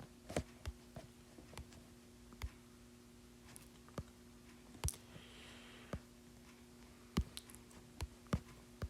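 Faint, irregularly spaced clicks and taps of fingertips on an iPad touchscreen, about a dozen of them, over a faint steady hum.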